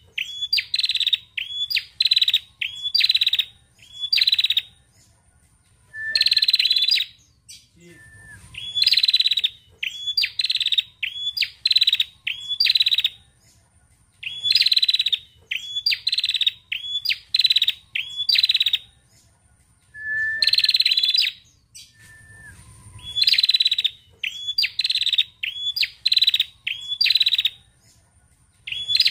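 Female tailorbird (prenjak) calling: runs of three to five short, high chirps in quick succession, the runs repeated every two to three seconds.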